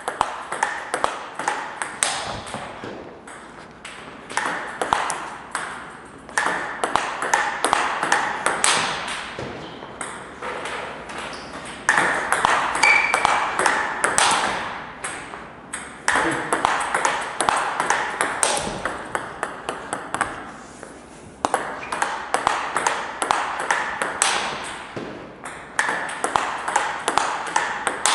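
Table tennis ball clicking off rackets and the table in fast rallies, with hard forehand smashes. The ball comes several hits a second, in bursts with short breaks between them.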